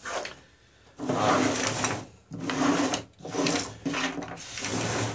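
Four rubbing strokes of about a second each, with short pauses between them.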